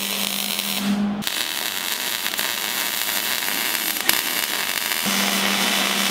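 MIG welding arc crackling and sizzling steadily as joints on a buggy's tube frame are welded, in three stretches that change abruptly about a second in and about five seconds in.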